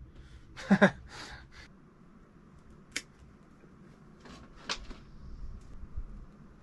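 Scattered handling noises in a cramped space: a few short clicks and knocks. The loudest is a brief sound falling in pitch under a second in, and a sharp click follows about three seconds in.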